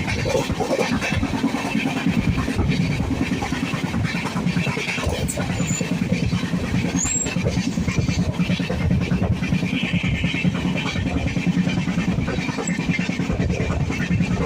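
A vehicle in motion: a steady low rumble with a fainter hiss above it, running evenly throughout.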